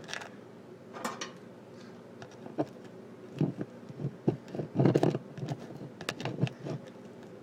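Handling noise of a camera being fixed in place with tape, close to the microphone: scattered taps, clicks and rustles, with a busier run of knocks and thumps about five seconds in. A faint steady hum runs underneath.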